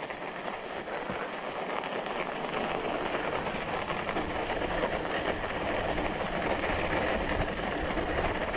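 Trek Farley 5 fat bike rolling along a packed snow trail, its wide tyres crunching and scraping over the snow without a break. A low rumble builds from about two and a half seconds in.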